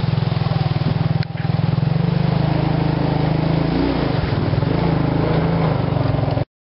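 Suzuki King Quad 300 ATV's single-cylinder four-stroke engine running under way on a snowy trail, with a steady low pulsing that wavers in pitch as the throttle changes. The sound dips briefly about a second in and cuts off abruptly near the end.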